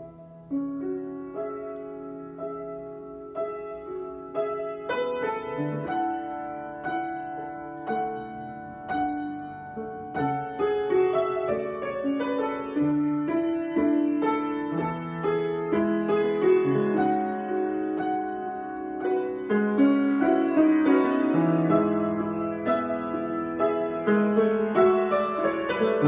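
Solo piano improvisation: a slow stream of struck notes and chords that grows gradually louder and fuller.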